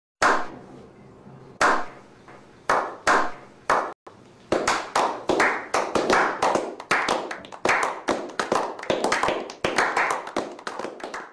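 A small group of men clapping, starting as a slow clap of single claps about a second apart, then building into quicker, overlapping applause from about four seconds in.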